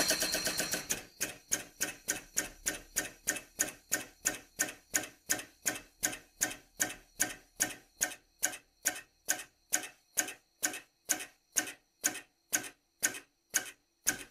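Metal-on-metal strikes as a new connecting-rod bolt is driven into the rod: a fast rattle at the start that settles into even, sharp taps about three a second, each ringing briefly.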